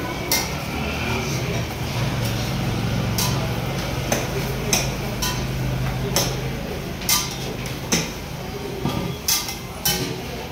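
Metal spatula clinking and scraping on a large flat iron griddle (tawa) as parathas are turned and pressed: about ten sharp, separate clinks over a steady low hum.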